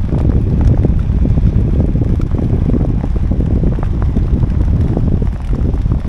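Wind buffeting the microphone in a steady low rumble, with many small taps of rain on top.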